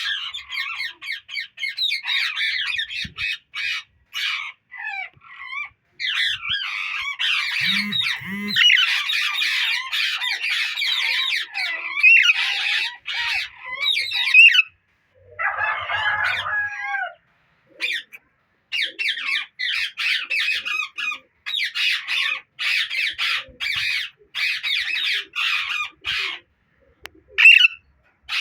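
Alexandrine parakeets squawking, a long run of short, harsh, repeated calls with brief pauses, and a lower-pitched call a little past halfway.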